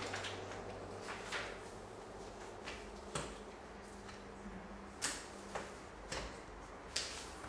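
Several sharp, short clicks and light taps at irregular intervals, the clearest coming from about three seconds in to near the end, over a faint steady low hum.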